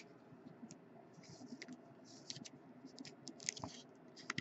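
Faint scratching and small clicks of a trading card being slid into a rigid clear plastic toploader, with a sharper click near the end.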